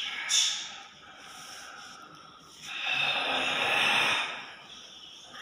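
An actor's heavy, forced breathing as he performs a monster: a short sharp breath about a quarter second in, then a long noisy breath lasting about two seconds, starting a little before the middle.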